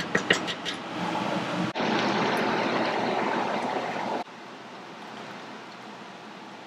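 A wooden spoon clicks a few times against the side of a metal pot while stirring a tomato and shrimp stew. Then comes a steady, water-like hiss of the simmering, bubbling stew, which stops suddenly a little after four seconds and leaves a fainter steady hiss.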